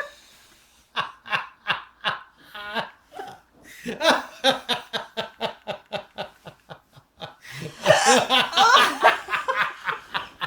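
A person laughing hard in a long run of short, rapid bursts after a brief pause, growing louder near the end.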